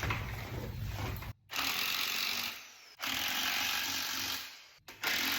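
A Bauer power tool running into wood in three short steady runs of about a second and a half each, with abrupt cuts between them.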